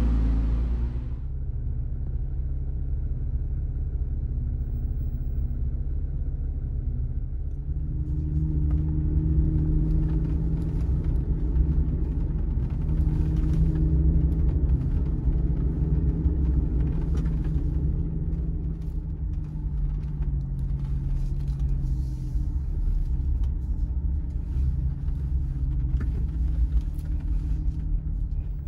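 Jeep Wrangler engine running at low trail speed, a steady low drone, with a scattered crackle over it from about eight seconds in.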